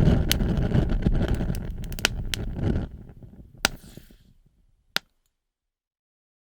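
Fire burning with a low rumble and scattered sharp crackles and pops, dying away over about four seconds, with one last pop about five seconds in.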